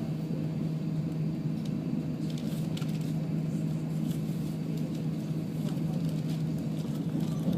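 A Volvo B10BLE bus's six-cylinder diesel engine running steadily at low revs with an even drone, heard from on board, with a few faint rattles.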